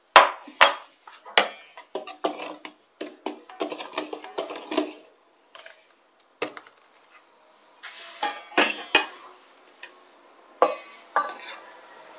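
A kitchen utensil clinking and scraping against a mixing bowl while stirring cake batter of eggs, sugar, milk and oil, in irregular bursts of sharp clinks with short pauses between.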